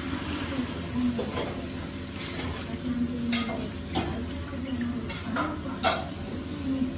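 A white soup spoon stirring and scooping thick mapo tofu sauce in a ramen bowl, with several sharp clicks of the spoon against the bowl in the second half.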